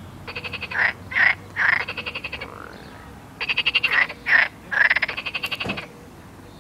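Frogs calling in two bouts of rapid pulsed croaking, about a dozen pulses a second. Each bout has two or three louder, drawn-out notes mixed in and lasts about two seconds, with a short pause between the bouts.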